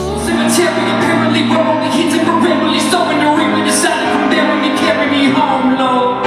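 Music: a singer's voice over sustained grand piano chords.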